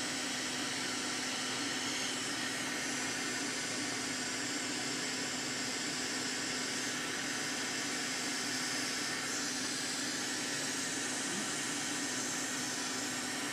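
Hot-air rework station blowing steadily, a constant airy hiss over a low hum, while it melts solder to seat a replacement MOSFET on an engine control unit's circuit board.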